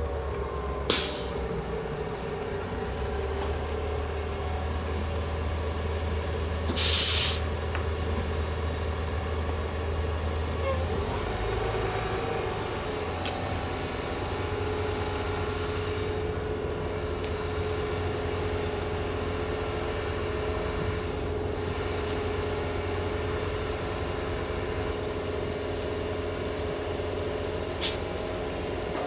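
City transit bus idling with a steady low rumble, broken by loud hisses of compressed air from its air-brake system: a short one about a second in, a longer one around seven seconds, and another short one near the end.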